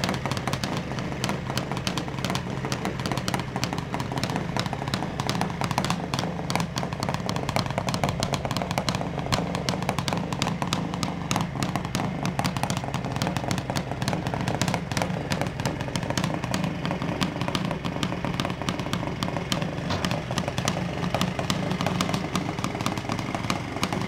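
Kawasaki H2 750SS Mach IV's air-cooled two-stroke triple idling steadily, its exhaust a rapid, even popping beat with no revving.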